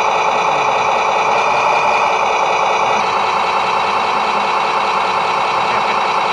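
Radio-controlled scale model truck or construction machine running: a loud, steady mechanical drone with a thin whining edge.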